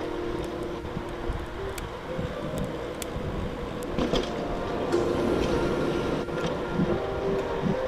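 Riding noise from a bicycle on a paved trail: wind buffeting the microphone and tyres rolling, with a steady hum and a few light rattling clicks.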